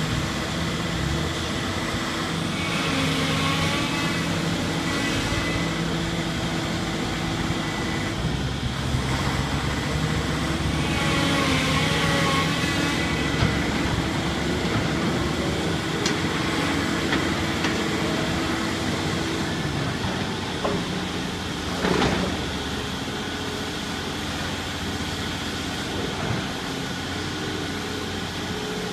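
Hydraulic demolition excavator with a shear attachment running under load, its engine steady, with a high wavering tone over it twice, about three seconds in and again around twelve seconds, and one sharp bang about three quarters of the way through. The abnormal noise comes from the machine itself rather than the shear, and the operator fears an expensive fault.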